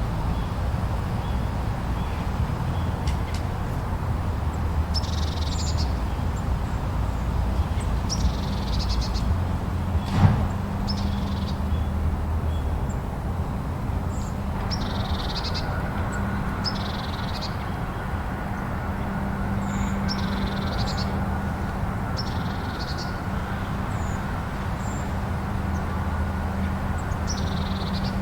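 Steady low rush of storm wind, with about a dozen short, harsh crow-like bird calls scattered through it and a single knock about ten seconds in.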